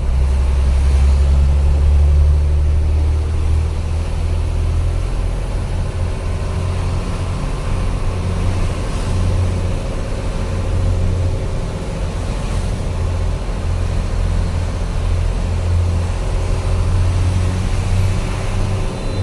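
Truck engine running steadily while driving, heard from inside the cab: a deep low drone with a fainter steady hum above it, a little louder in the first few seconds.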